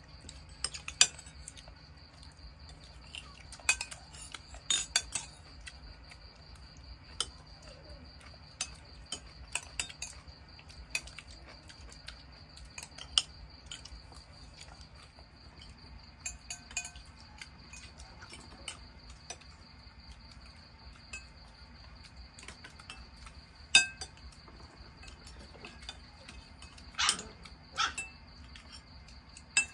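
Cutlery clinking against plates and bowls in scattered, irregular light clinks, a few sharper ones near the end. A steady high insect trill runs underneath.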